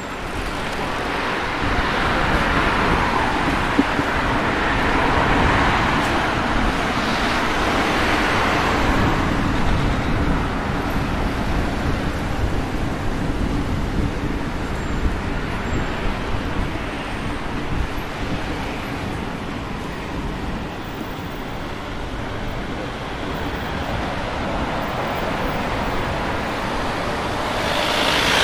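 City street traffic: a steady rumble of road vehicles with cars passing one after another, swelling several times as they go by and loudest near the end.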